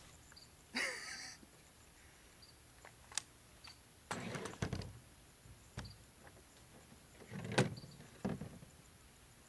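Scattered metallic clicks and clacks of a 9mm AR-15 carbine being handled after firing. There is a short rattle about a second in, a cluster of clacks around four seconds, and the loudest clack about seven and a half seconds in.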